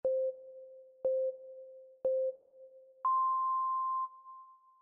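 Countdown timer sound effect: three short, low beeps one second apart, then a longer, higher beep about three seconds in that marks the end of the countdown.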